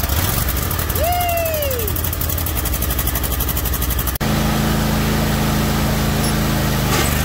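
Husqvarna riding lawn mower engine running steadily just after starting on the key with its new starter motor. A short call that rises and falls in pitch rides over it about a second in, and about four seconds in the sound changes abruptly to a steadier, lower engine hum.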